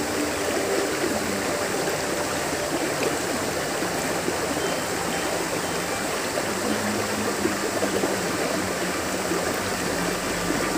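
Steady rushing of river water flowing out through a stone culvert, an even unbroken wash of water noise.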